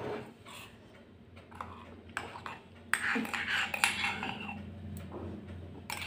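Metal spoon clinking and scraping against a mug and a steel mixing bowl while yeast water is spooned into flour: a few light clinks, with a longer stretch of scraping about halfway through.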